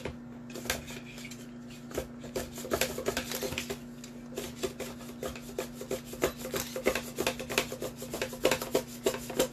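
A potato is pushed in a hand guard across the blade of a handheld mandoline slicer, slicing it thin. It makes a run of short scraping strokes, two or three a second, which become steady after about two seconds.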